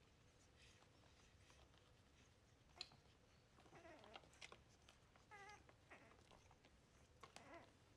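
Faint whimpers from three-week-old wirehaired miniature dachshund puppies while nursing: three short, wavering cries, about halfway through, around two-thirds of the way and near the end, with soft clicks between them.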